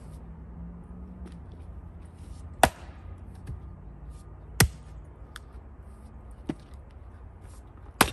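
Axe chopping firewood: three sharp blows, the third near the end, with a lighter knock between the second and third.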